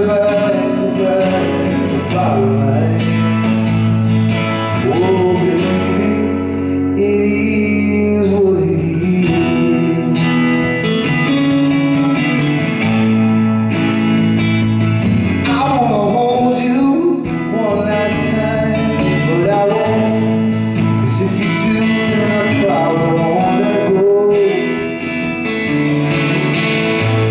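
A song played live: a male voice singing over strummed electric and acoustic guitars.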